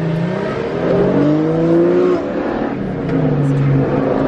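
Car engine accelerating, its note rising for about two seconds, then dropping and running on steady, heard from inside a moving car.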